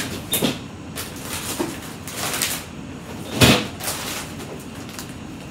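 Refrigerator door being opened and pushed shut, a few clunks and knocks with the loudest thump about three and a half seconds in; the door does not latch.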